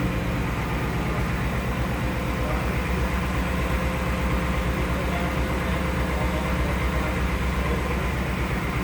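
2019 Ford Mustang Bullitt's 5.0-litre V8 idling steadily, a low, even pulsing run with no revs.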